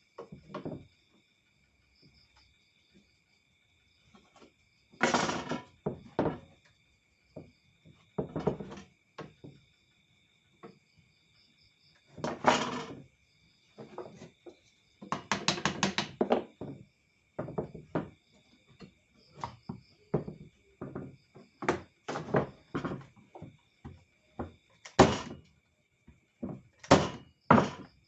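Irregular knocks and thuds of wooden parts being handled and set down, single and in quick clusters with pauses between. A faint steady high tone runs underneath.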